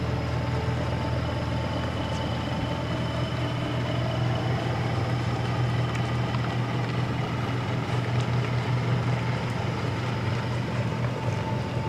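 Diesel engine of a Scania lorry running steadily at low revs as the truck reverses slowly toward a loading dock.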